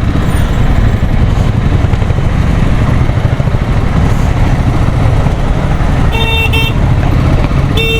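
Royal Enfield Himalayan 450 being ridden in slow city traffic: a steady low rumble of engine and wind. A vehicle horn gives two short toots about six seconds in and sounds again, longer, near the end.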